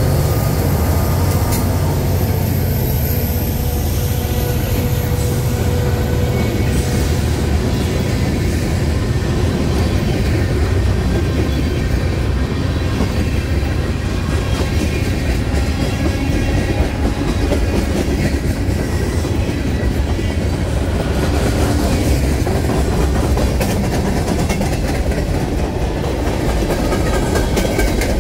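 Freight train passing close by as it builds speed. In the first few seconds the BNSF GP39-2 and GP60M diesel locomotives go by under power, with a low engine drone and a steady tone. After that, tank cars and boxcars roll past with a steady wheel rumble and clickety-clack.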